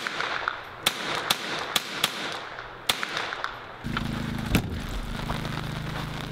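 Small-calibre rifle fired rapidly, about seven sharp shots in three seconds. Then a steady low hum takes over, with one sharp click about a second later.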